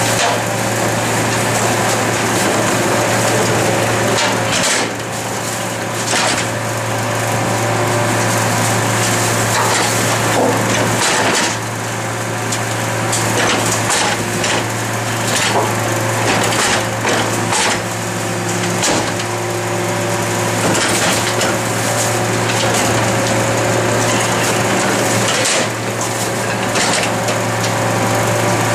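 Garbage truck's engine and hydraulics running steadily under load while its rear compactor crunches and cracks refuse, with irregular clattering as the bin lifter tips green wheeled bins into the hopper.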